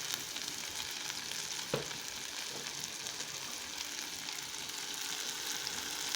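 Diced hot pepper and red onion frying in oil in a pan: a steady sizzle with fine crackles. A single light knock about two seconds in.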